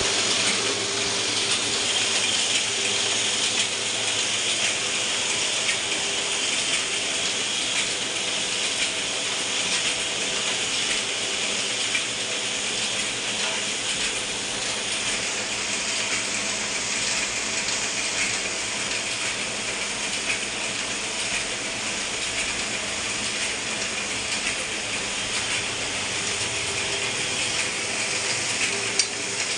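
Ryobi 3302H two-colour sheet-fed offset printing press running at full speed, a steady, even mechanical noise from its feeding and printing mechanism.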